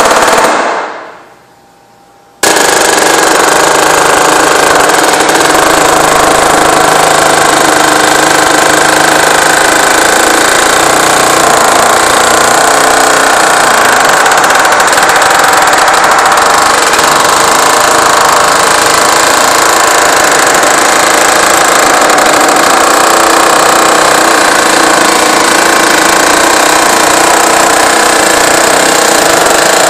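Pneumatic air hammer hammering rapidly as it drives the caulked edge of a filter cloth into the groove of a chamber plate. It stops about half a second in and starts again about two and a half seconds in, then runs steadily.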